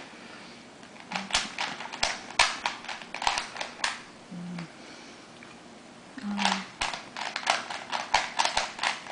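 Rubik's Cube being turned quickly by hand during a timed solve: plastic layers click and clack in fast, irregular runs, with a pause of about two seconds in the middle.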